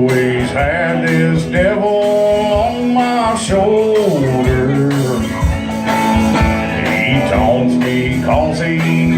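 A country-blues band playing a song's intro: guitar over a steady beat, with a sliding melody line.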